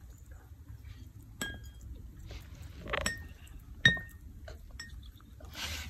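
A bird's beak pecking food from a dish, giving a few sharp clinks that each ring briefly; the loudest comes about four seconds in. A short rustle follows near the end.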